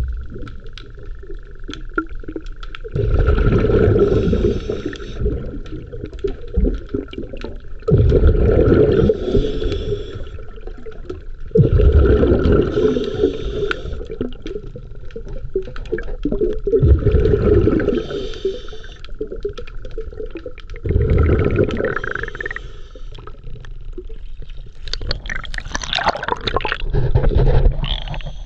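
Water sloshing and gurgling over a camera at the waterline, heard partly underwater. Loud surges of water noise come in six times, about every four seconds.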